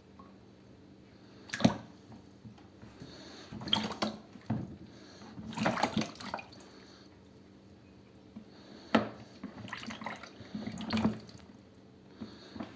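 Water splashing and dripping in several short bursts at irregular intervals, with quiet between them.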